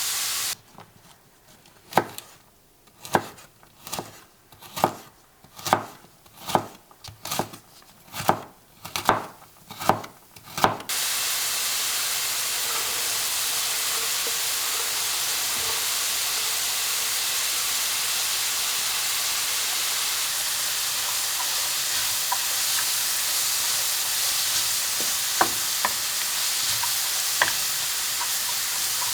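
Food frying in oil in a pan, a steady sizzle, with a few light ticks of stirring in its second half. Before that, for about ten seconds, the sizzle is absent and there is a run of about a dozen sharp knocks, roughly one a second.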